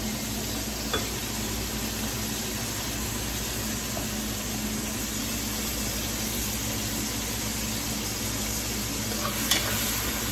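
Chopped peppers and garlic sizzling steadily in oil in a skillet, with a few sharp clinks of a metal spoon against the pan as they are stirred, the loudest near the end.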